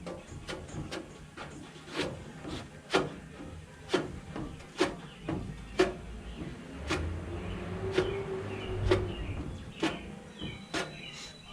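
Plastic spreader working Bondo body filler into a welded patch on a car fender: a run of sharp clicks and scrapes, about two a second, as the filler is forced into the cracks.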